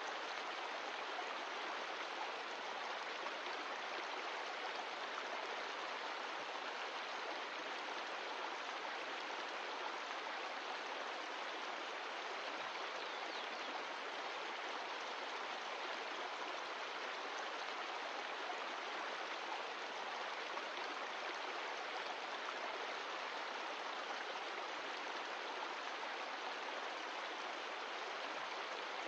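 Mountain stream of glacial meltwater rushing steadily, an even, unbroken sound of flowing water.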